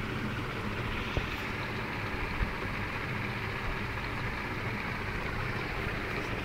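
Dog licking the inside of a plastic cup at close range: wet tongue and lapping sounds over a steady rushing noise, with a light click about a second in and another a little after two seconds.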